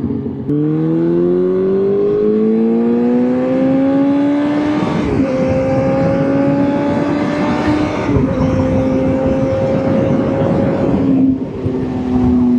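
Motorcycle engine pulling away and accelerating, its pitch climbing then dropping at each of three gear changes, with rushing wind noise throughout.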